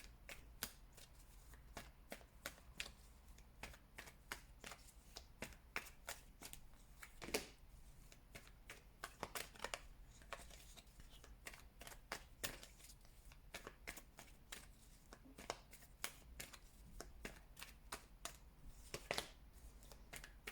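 A tarot deck being shuffled by hand: a quiet, irregular run of short card clicks and riffles.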